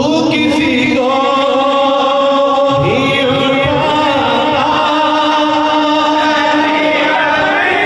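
Men's voices chanting a naat, a devotional Islamic recitation, in long held notes that bend slowly in pitch.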